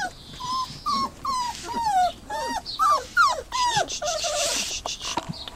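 Dobermann puppies whining and yelping: a quick run of about ten short high cries, each falling in pitch, over the first four seconds. A brief hiss and a few light clicks follow near the end.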